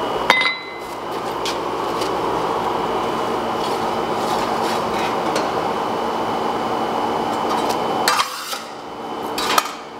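Steel bar stock and tongs clinking against metal at a coal forge: a sharp ringing clink about a third of a second in and two louder clanks near the end, over a steady rushing noise.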